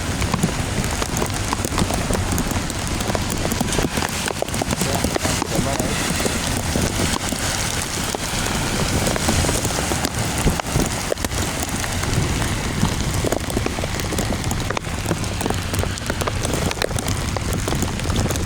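Heavy storm rain falling and pattering on a hard surface, a dense hiss of many drops over a steady low rumble.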